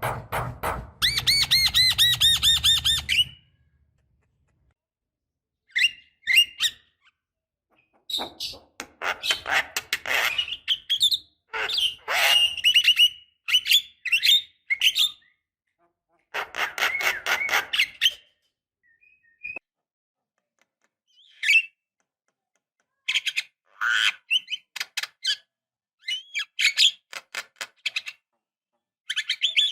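Javan mynas (jalak kebo) calling: bursts of rapid, harsh, chattering notes and squawks, each a second or two long, broken by short pauses.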